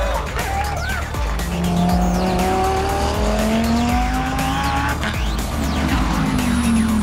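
GT race-car engines at high revs, their pitch climbing steadily as the cars accelerate, then falling near the end, over background music with a steady low beat.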